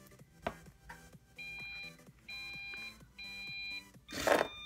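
Three short, high electronic beeps about a second apart over steady background electronic music, followed near the end by a brief, loud rushing noise.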